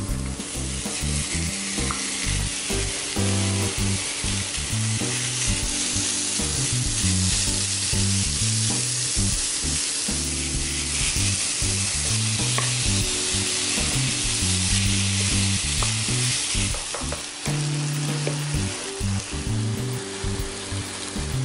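Minced pork and chopped onion sizzling in a frying pan, stirred with a wooden spatula. The sizzle swells just after the start as the meat goes in, and there are a few light clicks of the spatula against the pan.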